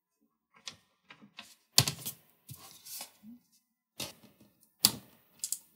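Plastic clicks and knocks of a Lenovo P52 laptop's chassis being handled and fitted back together during reassembly: an irregular run of sharp clicks, the loudest about two seconds in and again near the end.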